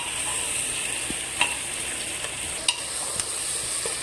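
Sliced onions sizzling steadily as they fry in oil in an aluminium pressure cooker, stirred with a wooden spatula that knocks sharply against the pot three times.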